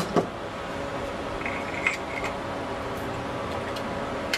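Metal parts of an Audi automatic transmission clinking and knocking as they are handled, with a few sharp clicks, the loudest just after the start, over a steady background hum.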